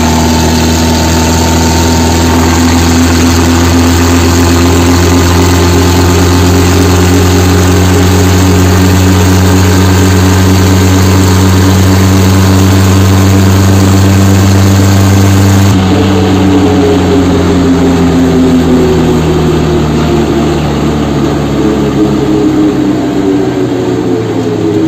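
Tractor's diesel engine running hard at a steady pitch, heard from on the tractor as it drives. About two-thirds of the way through, the engine note jumps higher and then slowly falls.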